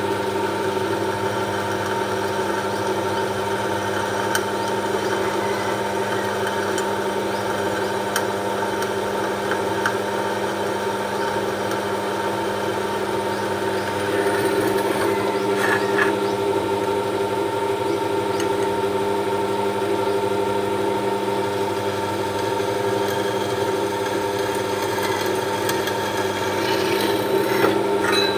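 Bench drill press motor running at a steady speed while a small twist drill bores holes into an aluminium heatsink, with faint scraping of the bit cutting the metal.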